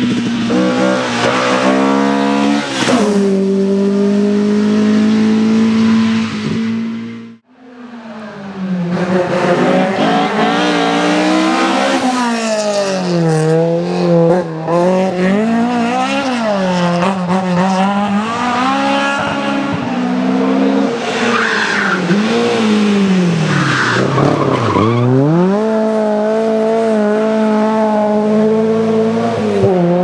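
Opel rally cars' engines running hard, first held at high revs, then revving up and down through gear changes as the cars pass. The sound cuts out briefly about seven seconds in, then comes back.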